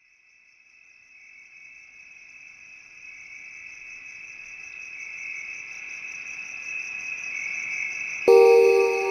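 A high, steady, insect-like chirring, finely pulsing, that swells gradually from near silence. Near the end, louder background music with mallet-percussion notes comes in over it.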